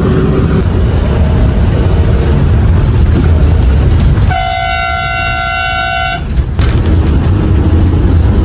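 Bus engine and road rumble heard from inside the cabin, with one steady horn blast lasting about two seconds near the middle.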